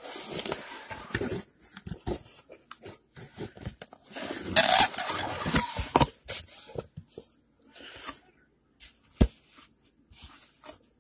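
A cardboard box being cut and opened by hand: scissors and fingers working through packing tape, cardboard scraping and rustling, with a louder tearing sound about four and a half seconds in and a single knock near the end.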